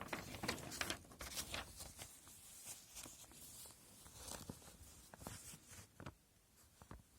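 Rustling and crinkling of a plastic model kit's packaging as it is handled, an irregular run of quick crackles, busiest in the first couple of seconds.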